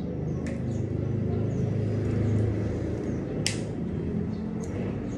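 A steady low mechanical hum throughout, with three light, sharp taps of a utensil against a bowl about half a second, three and a half seconds and four and a half seconds in, while floured pork cutlets are dipped in beaten egg.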